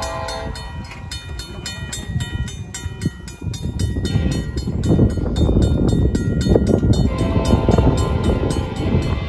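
A Safetran mechanical crossing bell rings with steady, quick, evenly spaced strokes. A Union Pacific freight locomotive's horn fades out about half a second in and sounds again near the end, over a low rumble of the approaching train that grows louder from about halfway through.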